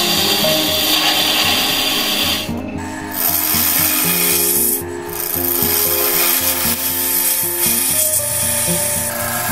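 Steel turning tool cutting into a spinning wooden pot blank on a wood lathe: a continuous rasping scrape of steel on wood. The scrape briefly drops away about two and a half seconds in and again near five seconds, as the tool comes off the wood.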